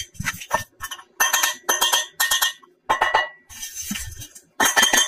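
A quick string of short, bright chiming tones, each a second or less, with brief gaps between them, like electronic toy or cartoon sound effects.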